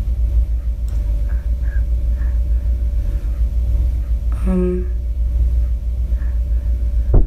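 Steady low rumble on a handheld phone recording in a dark room, with a faint steady hum above it and one short pitched sound about four and a half seconds in.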